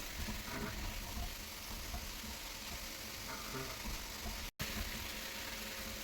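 5-axis CNC machine at work: a steady hiss with a few faint steady tones beneath it. The sound cuts out completely for an instant about four and a half seconds in.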